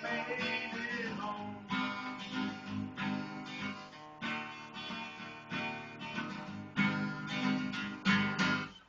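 Acoustic guitar strummed in a bluegrass tune, instrumental with no singing, with two hard strums near the end before the sound dies away.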